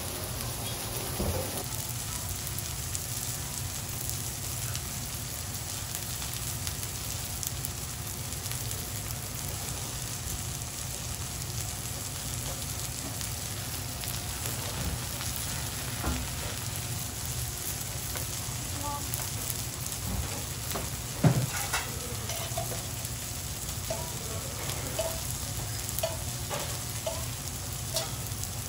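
Hiroshima-style okonomiyaki sizzling steadily on a hot teppan griddle, with a low steady hum underneath, small scattered clicks, and one sharp knock about two-thirds of the way through.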